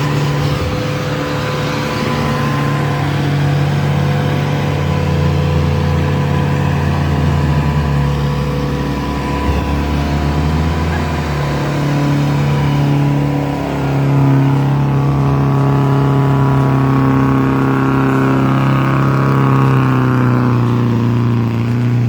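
Mazda off-road vehicle's engine running hard under load as it tows two stuck Toyotas out of mud, revs held high and rising and falling several times.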